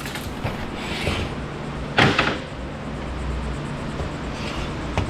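Metal parts knocking and clattering as an electronic unit is dismantled for scrap, with one louder clank about two seconds in and a few lighter clicks around it.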